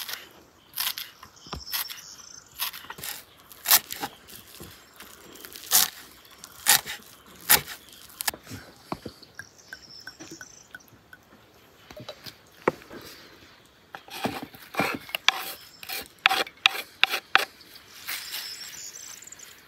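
Knife chopping fresh herbs on a wooden cutting board: a run of sharp, irregular strikes. After a quieter stretch in the middle, a second dense run of knocks and clicks follows as the herbs go into a clay tagine and a wooden spoon stirs them in with the tomatoes.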